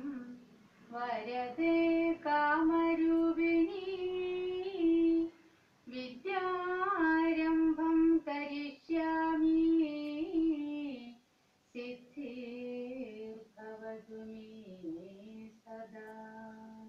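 A woman chanting a devotional Sanskrit sloka in a slow melody, unaccompanied, with long held notes in three phrases and short breaths between them; the last phrase is quieter.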